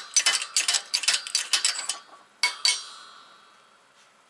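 Quick metallic clicking and clinking of steel parts on a hydraulic shop press as a wheel hub is lined up over the spindle. Then come two sharper clinks, the second leaving a short metallic ring that fades out.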